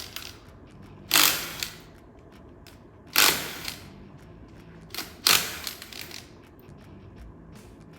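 A cordless power tool with an 8 mm socket spins out valve cover bolts in three short bursts, each about half a second long and roughly two seconds apart. Light clicks of bolts and the socket being handled come in between.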